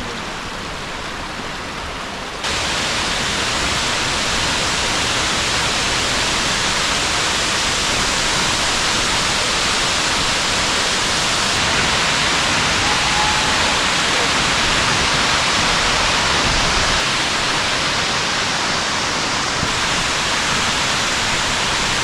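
Waterfall: a steady rush of falling water, stepping up in level about two seconds in.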